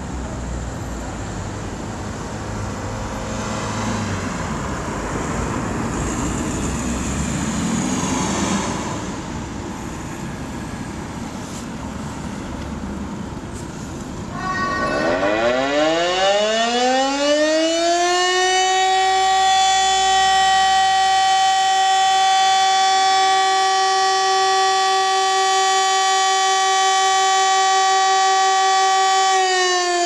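Rooftop motor sirens spin up about halfway through, rising in pitch over a few seconds to a steady chord of tones, which holds for about ten seconds and then starts to wind down near the end. This is the steady-tone signal of an Austrian civil-defence siren test. Before the siren starts there is only background noise.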